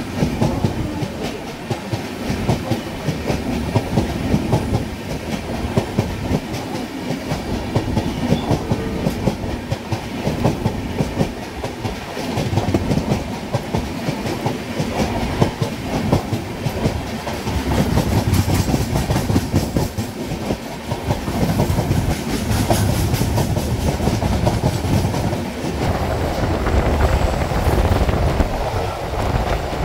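Train running noise heard at the open doorway of an MMTS local electric train: a steady rumble with rapid clickety-clack of wheels over rail joints. A long-distance express train passes close by on the next track.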